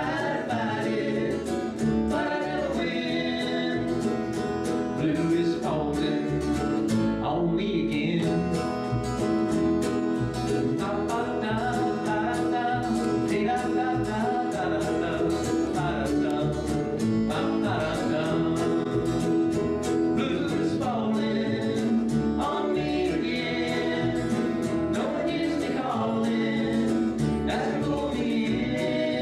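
Acoustic string band playing live, with upright bass, mandolin and acoustic guitar under several voices singing together.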